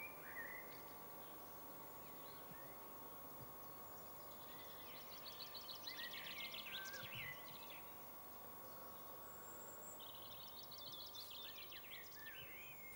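Faint birdsong over a low steady hiss: a small songbird sings two quick trilled phrases, about five seconds in and again about ten seconds in, with a few short chirps at the start.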